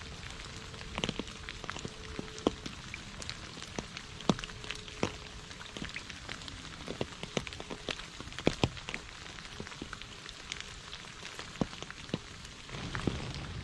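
Rain falling on a shallow puddle and wet fallen leaves: a steady patter with irregular, sharp drops plopping into the water. A low rumble comes up near the end.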